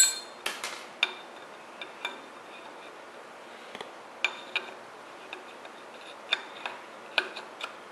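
Steel cam sprocket of a double-roller timing set clicking and clinking against the camshaft nose as it is turned by hand to line its locating pin up with the hole in the cam. About a dozen sharp, irregular metal clicks, several with a short ring.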